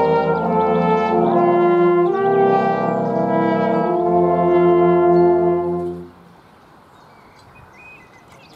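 A small brass band of trombones, trumpets, saxophones and a tuba plays the closing phrases of a slow Marian hymn in full chords. It ends on a final chord held for about two seconds that stops about six seconds in, leaving faint outdoor background sound.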